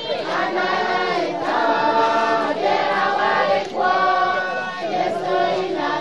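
A congregation of men, women and children singing a hymn together unaccompanied, many voices holding long notes in unison.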